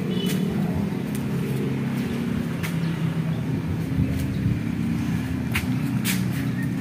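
A steady low engine rumble, as of a motor vehicle running nearby, with scattered light clicks over it.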